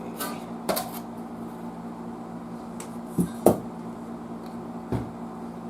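A few scattered clicks and knocks of objects being handled on a workbench, the loudest a pair about three and a half seconds in, over a steady low hum.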